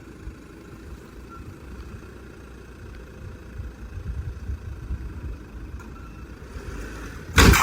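A low, uneven rumble, then a sudden loud crash near the end.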